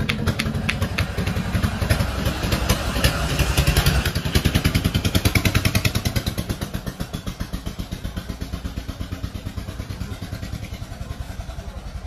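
Percussive head massage: hands tapping rapidly on the scalp through the hair, a fast, even run of sharp slaps several a second, loudest midway and tapering toward the end.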